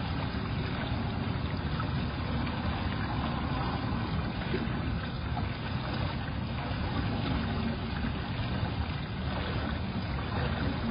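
Steady low rumble and hiss of background noise, with no distinct events, as picked up by a security camera's microphone.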